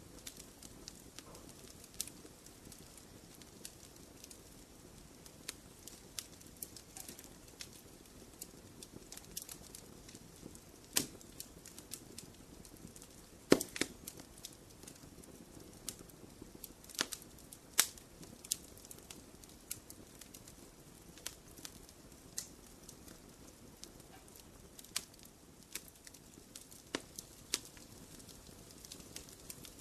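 Wood fire crackling in a fireplace: irregular sharp pops and snaps over a low steady rush of flames, the loudest pop about halfway through.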